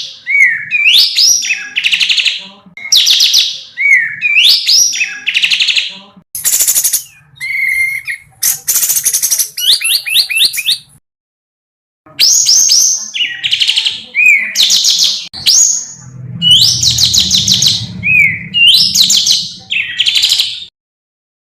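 African songbird singing loud, rapid trilled phrases that rise and fall, repeated again and again, with a short break near the middle. It is a rolling 'tembak' (shot) song of the kind played to captive songbirds for them to copy.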